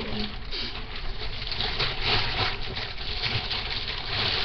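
Rustling and handling noise from things being moved about right by the webcam microphone: a dense crackle that swells about halfway through and again near the end.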